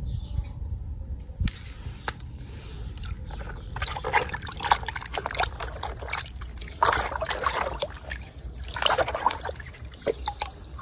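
Water sloshing and splashing in a plastic tub as a hand swishes and stirs through it, in irregular bursts from about four seconds in.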